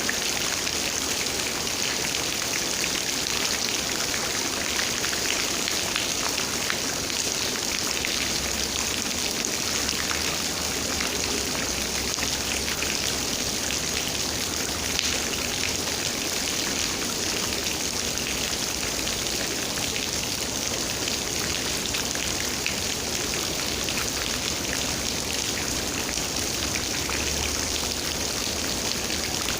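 Steady rain falling, a dense even patter of raindrops.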